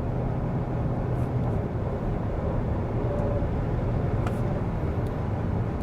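Steady road and wind noise inside a moving Li Auto L7's cabin, with a low steady hum underneath.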